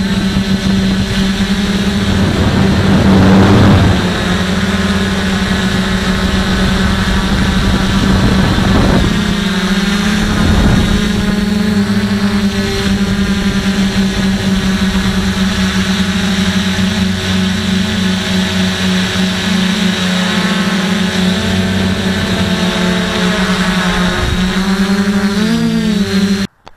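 DJI F450 quadcopter's electric motors and propellers heard from a camera mounted on its frame: a steady multi-tone hum with rushes of air noise a few seconds in and again around ten seconds. The pitch wavers as the throttle changes near the end, then the sound cuts off suddenly.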